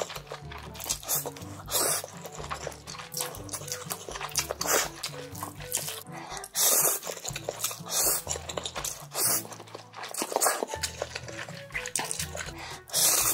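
Close-miked eating noises from a mukbang, wet bursts of slurping and chewing every second or two, over background music with a stepping bass line.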